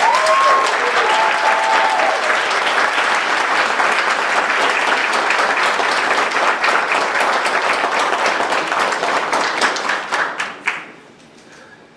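Group of people applauding: a dense, steady clatter of many hands clapping, with a couple of short cheers near the start. The clapping dies away about eleven seconds in.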